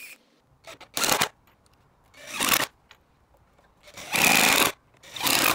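Cordless drill driving long wood screws through a pine batten into the timber boards of a bench top. It runs in four short bursts, the third the longest.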